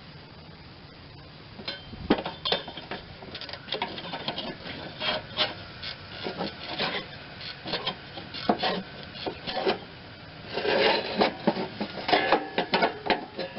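Irregular clinks, taps and scraping of hand tools working on steel mower-deck parts, beginning about two seconds in and getting busier near the end.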